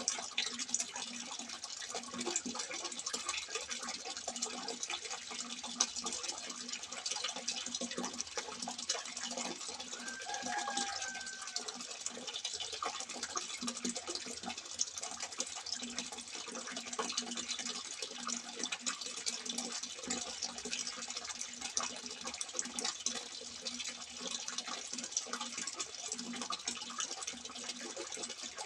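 Water running from a simple spout and splashing steadily into the water below: a continuous, even trickle and splash.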